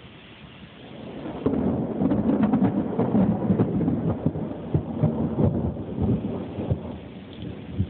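Thunder rolling: a low rumble that swells about a second in, rumbles and crackles for several seconds, then dies away near the end.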